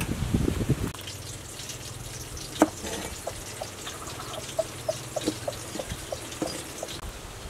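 Water sloshing and dripping as soaked wood ear mushrooms are handled: a brief slosh at the start, a sharp drip about two and a half seconds in, then a run of small pitched drips about two a second.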